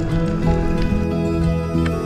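Background music with held, sustained notes.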